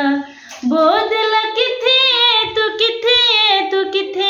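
A woman singing a Punjabi devotional qasida unaccompanied, in long, wavering held notes, with a short breath pause about half a second in.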